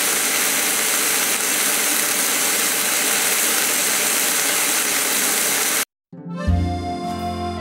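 Slices of pork sizzling in a frying pan on a portable gas stove: a steady, loud hiss. It cuts off suddenly about six seconds in, and after a moment of silence piano music begins.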